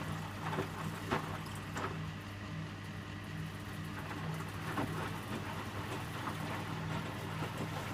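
Electrolux W455H commercial washing machine running its rinse: a steady motor hum with the water in the drum making a faint wash of noise.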